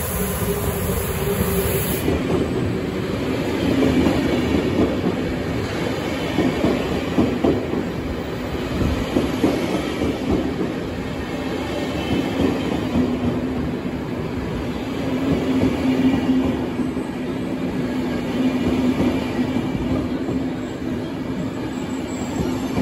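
SBB Re 460 electric locomotive and a long rake of IC2000 double-deck coaches rolling past along the platform as the train pulls into the station. The wheels clack and rumble continuously. A steady low tone joins about halfway through.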